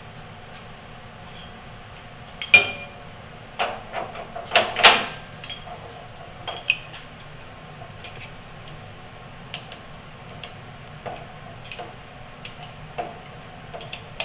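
Metal clinks and knocks as a multiple spindle drill head is seated onto a drill press quill and its clamp collar is tightened with a small wrench. The loudest knocks come about two and a half and five seconds in, followed by lighter scattered wrench clicks.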